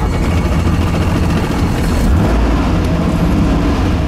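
Piston-engine helicopter running, heard from inside the cabin: a loud, steady engine and rotor drone.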